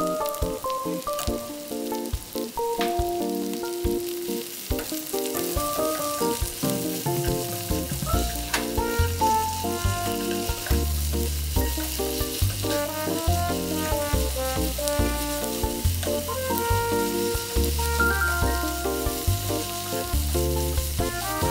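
Fish cake strips and sliced onion sizzling in a hot nonstick frying pan as oyster sauce is added, tossed with wooden chopsticks that give occasional light clicks against the pan. Background music plays over it, with a bass line coming in about eight seconds in.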